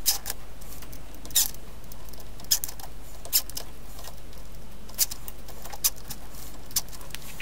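About eight small, irregular clicks and taps as a cordless screwdriver's bit and the small 2 BA screws on the lathe's chuck are worked, over a low steady hum.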